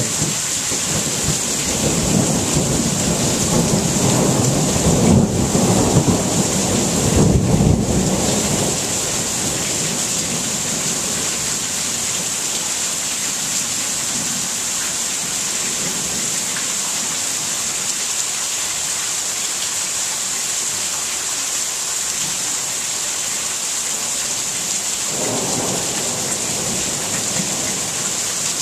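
Steady rain falling during a thunderstorm, with a long roll of thunder rumbling through the first several seconds and another roll of thunder beginning near the end.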